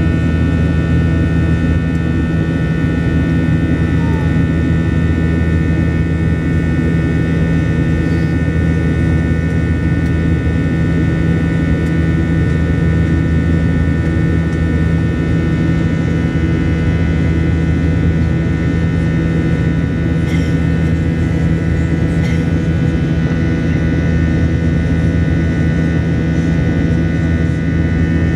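Steady cabin drone of an airliner climbing after takeoff: engine and airflow noise with a strong low hum and a few steady high whining tones.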